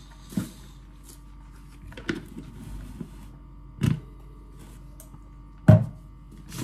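Handling sounds from a plastic shaker cup and a plastic supplement tub: four separate knocks, the loudest near the end.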